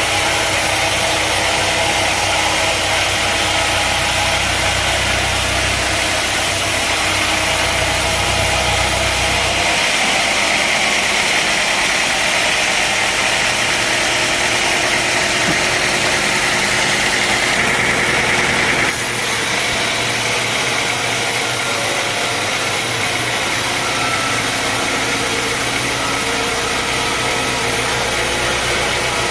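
Sawmill machinery running: a steady, loud engine-and-saw noise that changes abruptly about ten seconds in and again near two-thirds of the way through.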